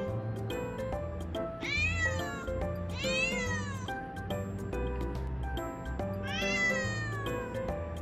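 Calico cat meowing three times, long drawn-out meows that fall in pitch at the end, calling out at a suspicious figure she has spotted on the balcony.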